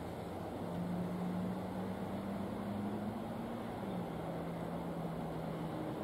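Steady low rumble of distant engine noise, with a humming engine tone that rises slightly and then drops in pitch about four seconds in.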